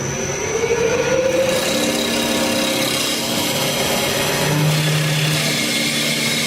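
CNC wood lathe running its automatic turning cycle: a motor whine rising in pitch over the first second and a half, then the turning tools cutting into the spinning wood blank with a steady rough, scraping noise over the machine's hum.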